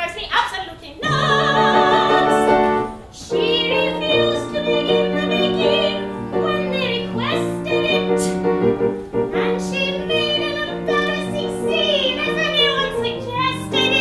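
A woman singing a cabaret song over piano accompaniment, her held notes wavering with vibrato, with a short break in the sound about three seconds in.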